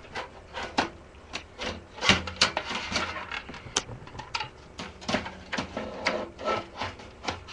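A computer power supply being set down into a desktop case and shifted into place: an irregular run of knocks, clicks and scrapes against the case.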